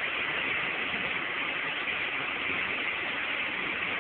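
Steady static hiss from the speaker of a Superstar CB-style radio tuned to 27.534 MHz: open band noise between transmissions.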